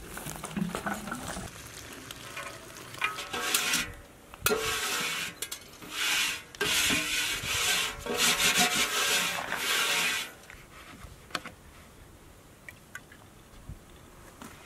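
The inside of a large metal cooking pot being scraped, in a run of rasping strokes with a faint metallic ring, from about three seconds in until about ten seconds in.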